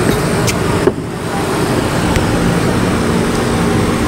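A car engine running steadily and loudly, with a dense low drone and a brief dip about a second in.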